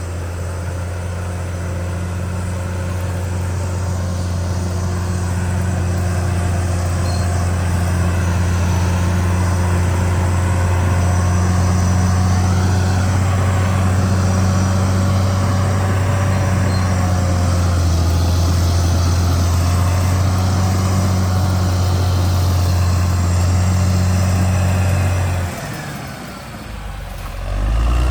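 Caterpillar D6R XL bulldozer's diesel engine running steadily under work, growing louder over the first several seconds; the engine note drops away for a moment near the end and then comes back.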